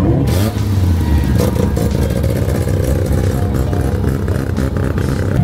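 A car engine running loudly, its pitch dropping briefly at the start.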